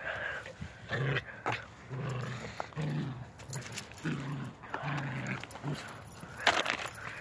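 Two small dogs play-fighting, giving a run of short, low growls about half a second apart, with a few knocks and rustles of scuffling close to the microphone.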